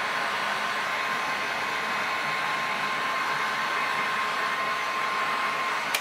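Electric heat gun blowing steadily with a faint whine while heating laminating film on a model fuselage; it cuts off with a click near the end.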